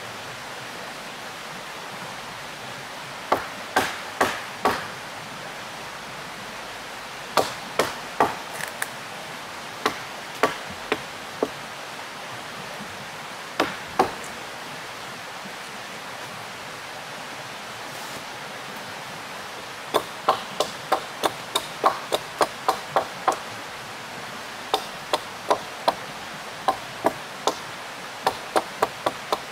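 Wood being chopped by hand: sharp blows in bursts, quickening to about three a second for a few seconds past the middle. A steady rush of river water runs underneath.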